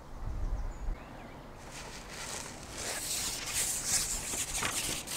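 Wind rumbling on the microphone for about a second, then a rustling hiss with light clicks that builds up over the next few seconds.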